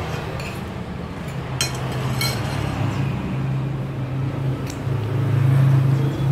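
A low, steady engine hum, like a motor vehicle idling or passing, that grows louder near the end. A couple of metal cutlery clinks against a plate come a second or two in.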